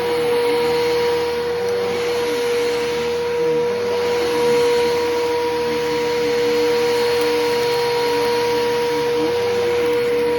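Bissell Powerforce Helix Turbo upright vacuum cleaner running steadily while vacuuming, with a constant high motor whine over a rushing airflow and lower tones that waver up and down.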